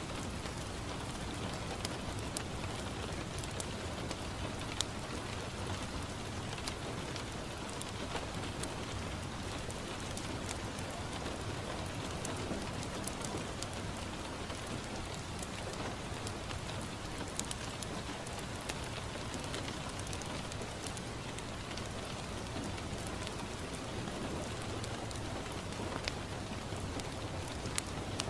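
Steady rain falling on a window, mixed with a crackling wood fire: an even hiss with scattered sharp pops and ticks.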